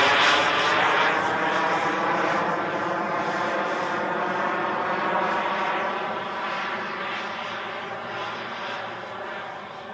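Frank VRaptor model jet turbine of a 1:3 scale Messerschmitt P1110 RC jet in flight: a continuous rushing whine with a steady high tone, growing steadily fainter as the jet moves off.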